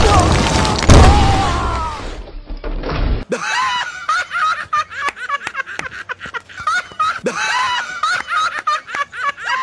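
Dramatic film score with a heavy boom about a second in, fading away. Then, after a sudden cut, excited high-pitched voices laughing and crying out, over many sharp claps.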